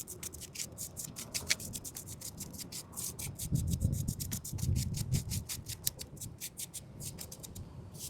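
Scratch brush scrubbing broken concrete in rapid back-and-forth strokes, several a second, to clear loose grit and rocks from a chipped curb before patching. A louder low rumble comes through about halfway in.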